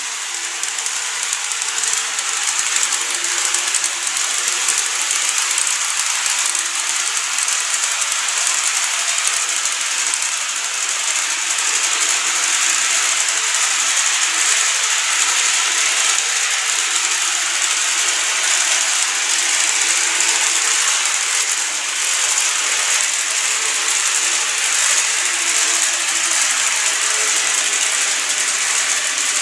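N-gauge model trains running on plastic viaduct track: a steady dense rattle of small metal wheels on the rails, with a faint hum from the motors.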